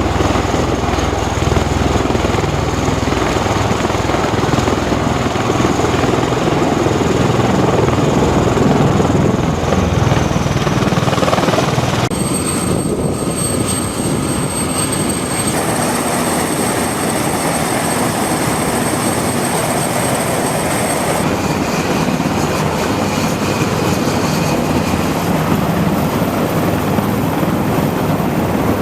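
Military rotorcraft running on a ship's flight deck: a loud, steady rotor and turbine noise. It changes abruptly a few times as the shots are cut together.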